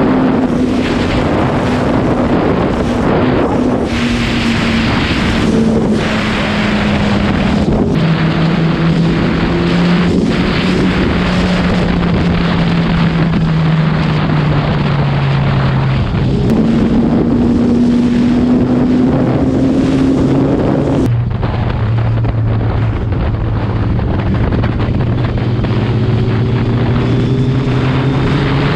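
Suzuki Hayabusa's inline-four engine under way, its note sinking slowly, then stepping abruptly to new pitches several times as the gears change, and climbing slowly near the end. Heavy wind rush on the microphone.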